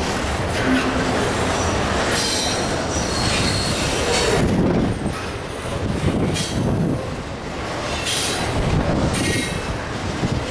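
Freight cars rolling past with a steady rumble and clatter of wheels on rail, and short high-pitched wheel squeals now and then.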